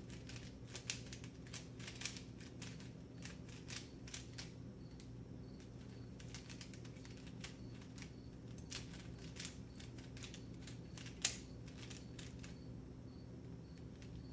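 Plastic clicks and clacks of an Eyeopener 3×3 speed cube's layers being turned in quick bursts as it is solved, with one sharper click about eleven seconds in.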